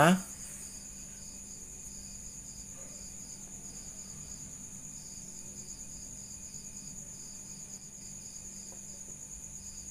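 Background insect chirping: a steady high trill with a second chirp pulsing a few times a second, over a faint low hum.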